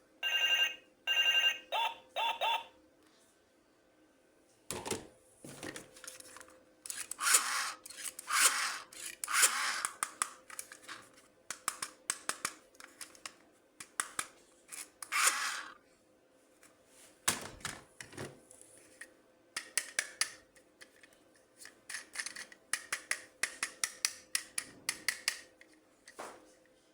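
An electronic toy's sound chip plays a short beeping tune that stops about two and a half seconds in. After a pause, hands handle plastic toy packaging and parts: a long run of quick crinkling, rustling and clicking.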